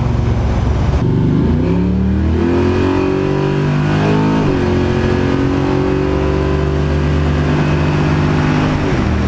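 The engine of a 700-horsepower drag car, heard from inside the cabin, revving up under acceleration. Its pitch climbs for about three seconds, drops sharply about four seconds in, then holds a steady note before falling back near the end.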